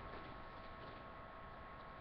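Faint room tone: low hiss with a steady hum, and no sneeze or other distinct sound.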